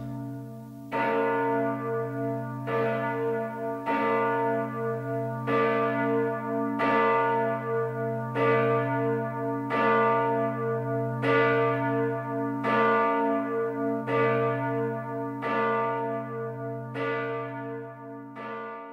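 A single large church bell tolling slowly, struck about every second and a half, each stroke ringing on into the next over a deep steady hum.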